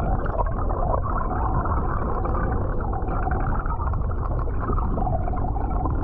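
Water heard underwater through a submerged camera: a steady, muffled rushing and gurgling as a hull glides past overhead.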